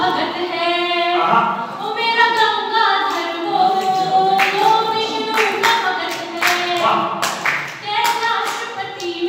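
A woman's voice singing a poem unaccompanied in long, held melodic lines, with a few claps partway through.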